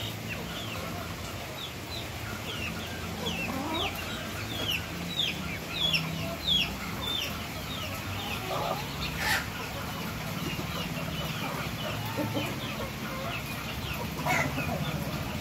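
A flock of chickens calling while they feed, with a quick run of short, high, falling peeps from about four to seven seconds in. A louder call comes about nine seconds in and another near the end, over a low steady hum.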